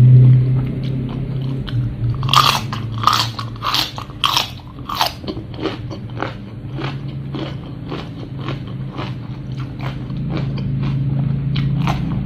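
A person biting and chewing crunchy food, with several loud crisp crunches a couple of seconds in, then quieter regular chewing about twice a second. A steady low hum sits underneath.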